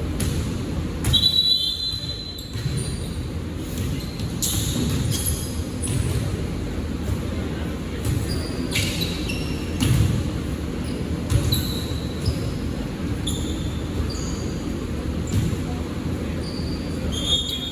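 Basketball being dribbled on a hardwood court, with several short, high sneaker squeaks on the floor and a few sharp thumps, over the steady background noise of a gym.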